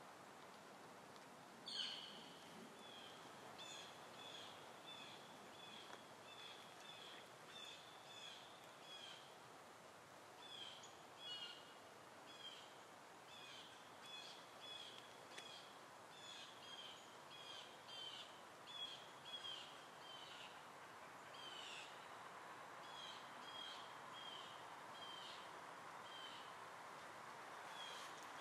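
A bird calling over and over in short, high notes, about two a second, with brief pauses now and then. One sharper, louder call comes about two seconds in. Under it is a faint outdoor hiss.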